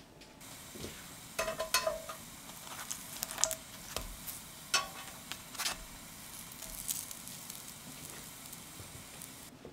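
Bread slices sizzling on a hot ridged grill pan, with scattered clicks and knocks as the slices are pressed and turned.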